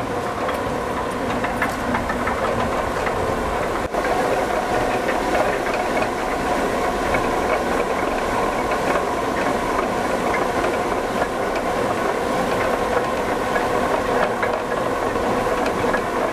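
A horizontal water mill running: the millstones turning with a steady clattering hum.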